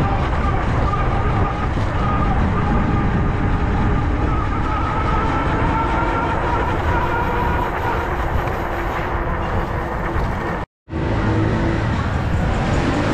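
Heavy wind rush and road noise while riding along a street, with faint whining tones that drift slowly up and down in pitch. The sound cuts out completely for an instant near the end.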